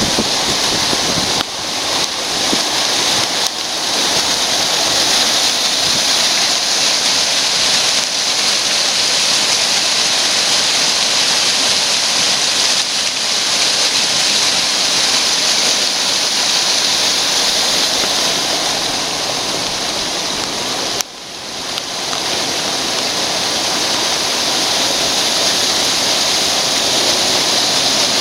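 Steady rush of flowing water, runoff from typhoon rain pouring through the site. The sound drops suddenly about 21 seconds in and builds back up.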